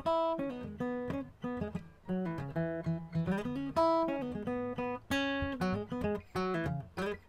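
Background music on acoustic guitar: picked notes and strummed chords, each starting sharply and ringing away.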